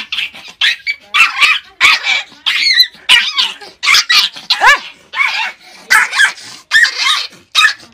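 Small dog yapping over and over in quick, high-pitched barks, about three a second.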